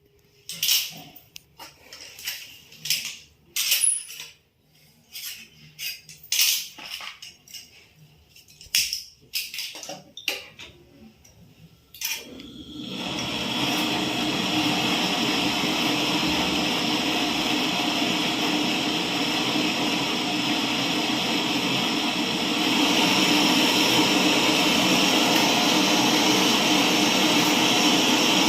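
Scattered knocks and clicks of handling, then about twelve seconds in a loud, steady rushing hum of a machine or gas flow starts and keeps going, getting a little louder near the end.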